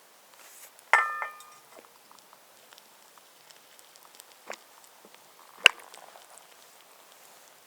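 A few sharp knocks from hand-tool woodworking. The first, about a second in, rings briefly with a clear tone and is followed at once by a second knock. A small click comes a few seconds later, then a sharper, louder knock.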